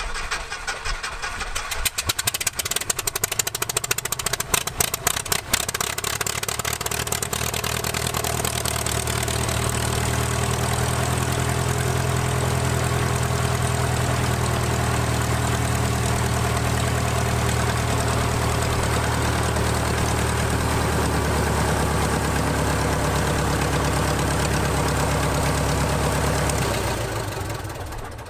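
Van's RV-6A's Lycoming four-cylinder engine and propeller on a hot start: uneven cranking and firing for the first few seconds, then steady running, then shut down and winding down near the end. This is the first run after an oil change, made to check for oil pressure.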